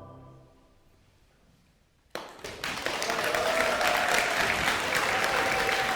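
Choir's final sung chord fading away, a brief hush, then the audience breaking into applause about two seconds in and quickly building to steady clapping.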